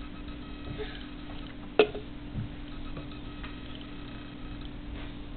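Handling of a glass measuring cup and a milk carton just after pouring: a single sharp tap about two seconds in, followed by a softer knock, over a steady low hum.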